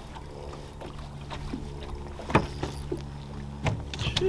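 Steady low hum of a boat motor, with a few sharp knocks and clicks; the loudest knock comes a little past halfway.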